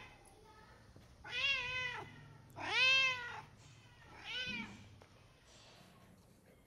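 Domestic cat meowing three times, each meow rising then falling in pitch, the middle one the loudest: a hungry cat crying for food.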